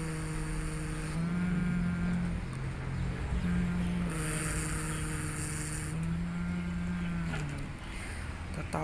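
A voice humming long, low held notes that step between a few pitches, each held about a second, with a brief high hiss about halfway through.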